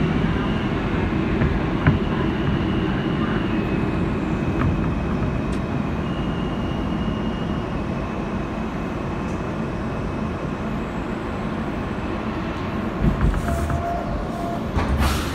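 Kawasaki R160B subway car with Alstom propulsion, heard from inside, running into a station and slowing. A dense steady rumble eases gradually, with a thin high whine that shifts pitch in steps. A short knock comes about 2 seconds in, and a thump and a brief sharp burst come near the end.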